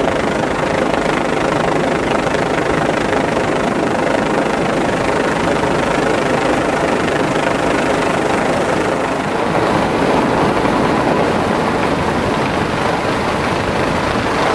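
Rescue helicopter hovering close overhead, its rotor and engine noise loud and steady as a crewman is lowered on the winch cable.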